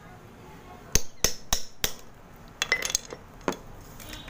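Metal hammer striking a flat metal blade driven into a block of multani mitti (fuller's earth) to split off a layer: four quick sharp knocks about a second in, then a flurry of smaller clinks and one more knock.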